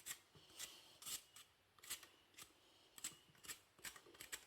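Vegetable peeler scraping the skin off a fresh ginger root in short, irregular strokes, roughly two a second, faint.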